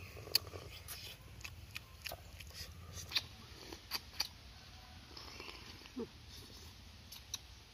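A person eating fish with his fingers: scattered wet lip smacks and sucking clicks, with a short slurp about six seconds in.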